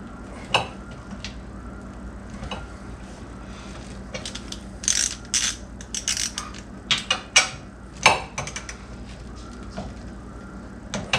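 Hand ratchet wrench clicking as a bolt is tightened up under the truck's rear axle: a single click about half a second in, then several quick bursts of ratcheting strokes in the middle, snugging the bolt up. A steady low hum runs underneath.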